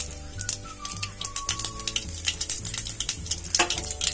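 Mustard seeds spluttering in hot oil in a kadai: many small irregular pops and crackles, thickest near the end. Background music with a steady bass line plays under it.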